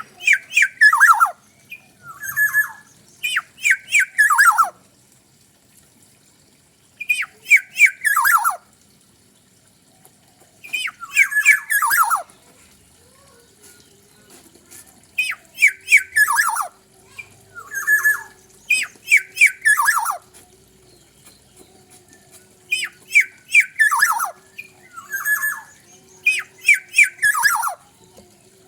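A kepodang (oriole) calling in repeated bursts of harsh, squawking notes. Each note falls steeply in pitch. A new phrase comes every two to four seconds, with short pauses between them.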